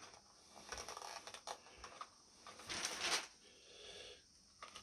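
Faint handling sounds from an airsoft AK-47 stock: small clicks and knocks, and a brief rustle about three seconds in, as a battery and its wires are worked out of the stock's battery compartment.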